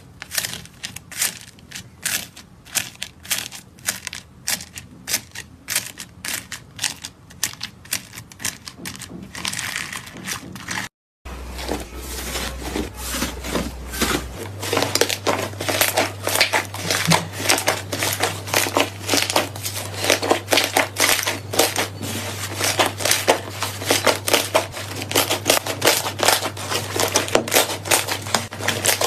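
Slime squished by fingers, making sharp crunchy crackles and clicks: first a slime packed with foam beads pressed in a tub, then, after a short break, a large batch of thick slime pressed and pulled apart by both hands, with denser crackling over a steady low hum.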